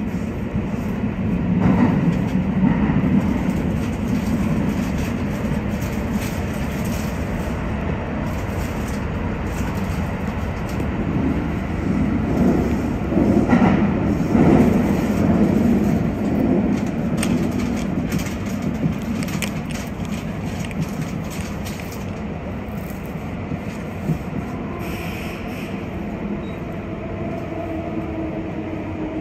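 Kintetsu rapid express electric train running through an underground tunnel, heard from inside the front car. A steady low rumble of wheels on rail swells louder for a few seconds around the middle.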